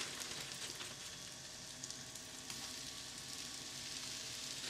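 Melted butter sizzling quietly and steadily in a frying pan as flour-coated pieces of beef are added to fry.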